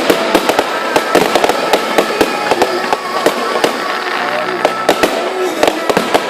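Fireworks display: a dense, irregular volley of sharp bangs and crackles from bursting shells, with faint voices or tones underneath.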